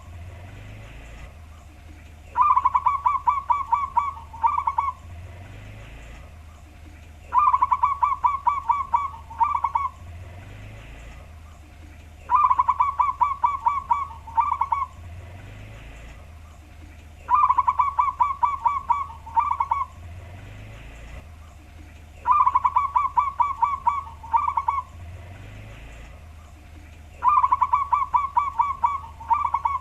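Zebra dove (perkutut) of the local wild type singing its deep cooing song, repeated about every five seconds: each phrase a quick run of coos, a short break, then a final couple of notes. A steady low hum runs underneath.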